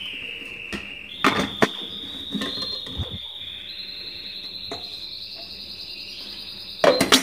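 Clicks and knocks of a small electric Moulinex seed grinder being handled between grinding runs, loudest near the end. Under them runs a faint steady high whine that steps up in pitch twice.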